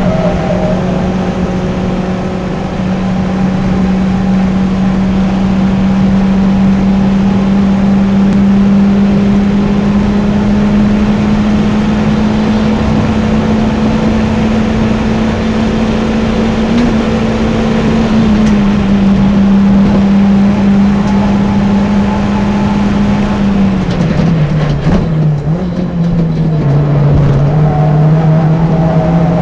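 Renault Twingo RS 204's swapped 2.0-litre F4R four-cylinder with a decat exhaust, heard from inside the cabin, running flat out in sixth gear at a steady high pitch under the wind and tyre noise. About 24 seconds in it lifts off for braking, and the pitch drops and wavers through downshifts to fourth before it pulls again near the end.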